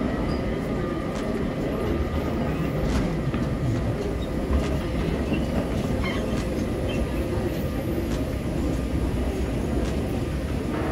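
Moving walkway running with a steady mechanical rumble and a faint hum, with light footsteps.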